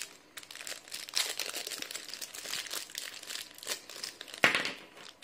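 A thin clear plastic bag crinkling and rustling in irregular crackles as hands handle and open it, with one louder rustle about four and a half seconds in.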